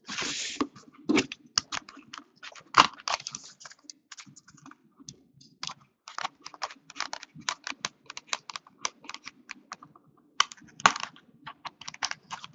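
Utility knife cutting the seal on a cardboard trading-card box, a run of quick, irregular clicks and scratches of the blade against cardboard and tape. It opens with a short scrape and thins out for a couple of seconds midway.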